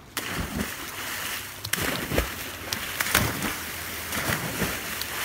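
Splashes of people jumping feet-first into the sea one after another, several loud hits about two to three seconds in over a steady wash of water.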